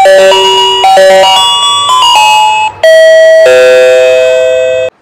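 Electronic musical doorbell playing a loud melody of clear chiming notes, which cuts off abruptly near the end.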